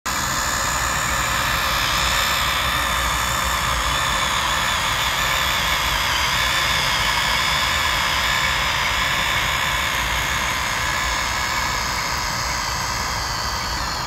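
Huina remote-control excavator running, a steady mechanical whine of its electric motors that holds unchanged throughout.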